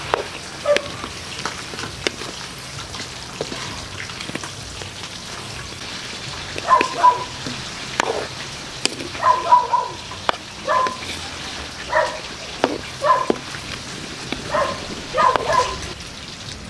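Sweet sauce bubbling and sizzling around chicken wings in a wok as it reduces, with a spatula now and then scraping and knocking the pan. From about seven seconds in, a dog gives short yaps in twos and threes, the loudest sound.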